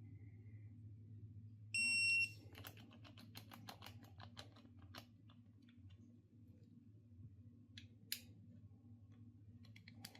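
A loud half-second electronic beep, then a fast run of sharp clicks from a ratchet wrench running down the oil pump bolts, with a few more clicks later, over a steady low hum.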